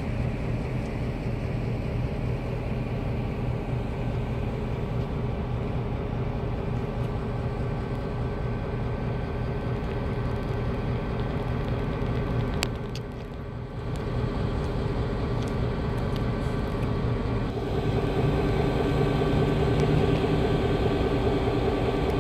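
Diesel locomotive engine, an EMD GP9's 16-cylinder two-stroke, running steadily with an even engine drone. About 18 seconds in it grows louder and fuller.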